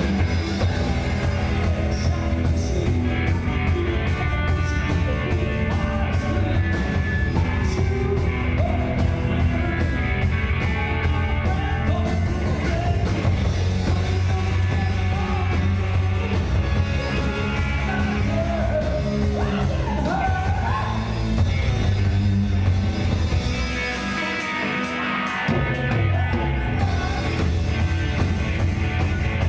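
A live rock band playing: a lead singer singing and yelling into a handheld microphone over distorted electric guitars, bass, drums and keyboards. About 24 seconds in, the bass drops out for a second or so, then the full band comes back in.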